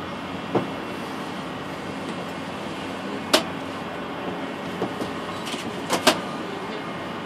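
Steady hum and rushing noise inside a moving Emirates Air Line cable car gondola, broken by a few sharp clicks: a loud one a little over three seconds in and a quick pair near six seconds.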